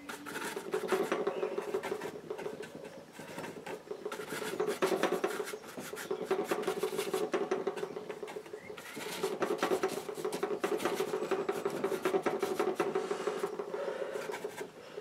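Bristle brush scrubbing and dabbing oil paint on a board and on a card palette: a dense, continuous run of short scratchy strokes with a few brief lulls.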